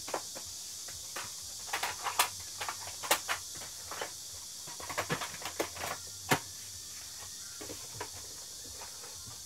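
Plastic cassette tape cases clacking and knocking as they are handled, slid onto wooden shelves and taken from a cardboard box. The clicks come in irregular clusters, busiest around two seconds in and again from five to six seconds in, and there are only a few faint ones after that.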